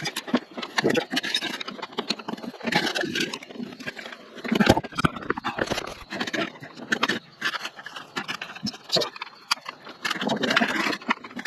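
Irregular scraping, clicking and knocking of hands and tools working at a motorcycle's lower fairing while screws and parts are handled.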